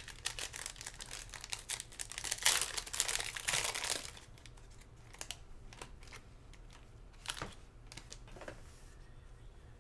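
Silver foil wrapper of a Topps Tier One trading-card pack crinkling as it is pulled open. The crinkling is dense for about four seconds, loudest near the end of that stretch, then gives way to a few scattered crinkles and clicks.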